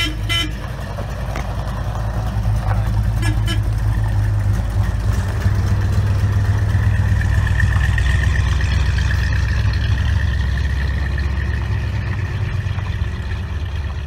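1968 Plymouth Road Runner's V8 engine running with a deep, steady exhaust rumble as the car pulls away and drives off, loudest through the middle and easing off a little near the end.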